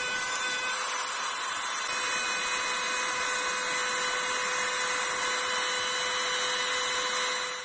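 Makita 710 W trim router running at speed with a 10 mm straight bit, cutting out the inside of a circle in plywood about 5 mm deep: a steady, high-pitched whine with the hiss of the cut. It fades out abruptly at the very end.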